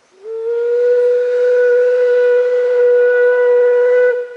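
Whistle of a narrow-gauge steam tank locomotive sounding one long blast. The note slides up briefly as it opens, holds steady for about four seconds, then cuts off sharply, leaving a short echo.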